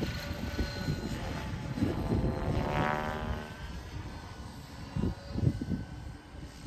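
Align T-Rex 550 electric radio-controlled helicopter in flight, its rotors and motor giving a steady whine that bends in pitch about three seconds in as it manoeuvres. A couple of low rumbles come about five seconds in.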